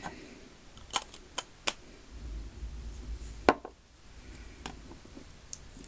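Small makeup items being handled: a lipstick tube and other products tapped and set down, giving a few sharp clicks about a second in and one more in the middle, with a brief low rumble of handling noise between them.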